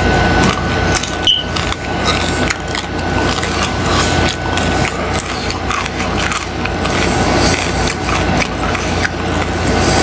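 Close-miked chewing of a bite of crunchy fried taco with tripas, with dense, irregular crackling and crunching from the shell and the crisp tripe as it is chewed, mouth closed.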